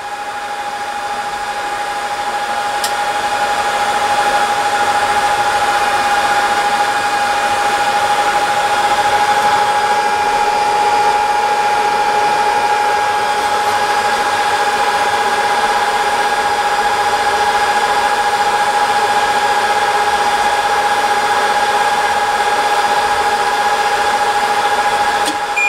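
BGA rework machine's hot-air heater blowers running steadily during the reflow heating stage: a steady whooshing rush with a constant whine through it, building slightly in the first few seconds.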